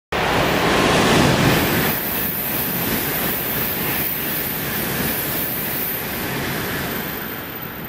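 Shinkansen bullet train passing through a station at speed: a steady rush of air and rail noise that is loudest in the first two seconds and slowly dies away as the train goes by.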